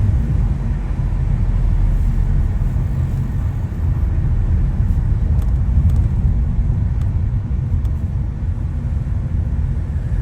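Lamborghini Aventador SV's V12 with a Capristo exhaust running steadily, a deep low rumble with no revving.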